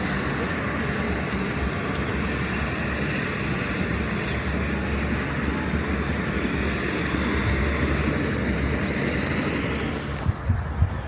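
Steady rushing roar of falling or fast-flowing water, even and unbroken, that drops away about ten seconds in. A few sharp knocks stand out near the end.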